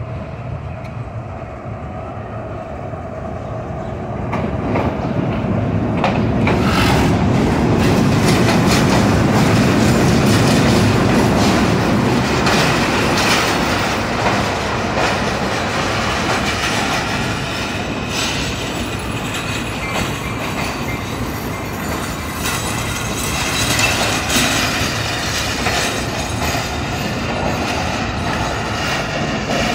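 Passenger coaches of an arriving train rolling past, wheels clicking over the rail joints with high-pitched squeals from the wheels. At first a diesel locomotive idles, and the train noise swells about four seconds in.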